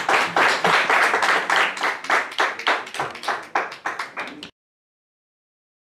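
Several people clapping their hands in a steady rhythm, the claps thinning and fading, then cutting off abruptly about four and a half seconds in.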